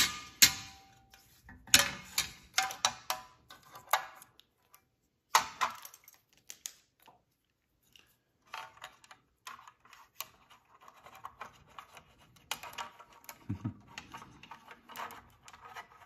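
Aluminium magnetic fidget toys and a plastic tray being handled: a run of sharp clicks and knocks in the first few seconds and another about five seconds in, then lighter scattered clicks and rubbing, with a soft thump near the end.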